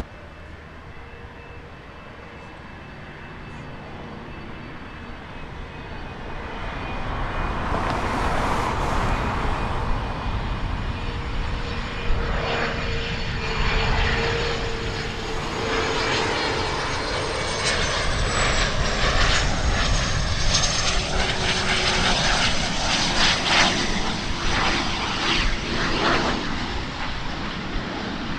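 Embraer Phenom 300 business jet on final approach, its twin Pratt & Whitney Canada PW535E turbofans giving a steady whine over a rumble. It grows louder from about six seconds in and stays loud as the jet closes in. In the second half the high whine slides slightly lower in pitch.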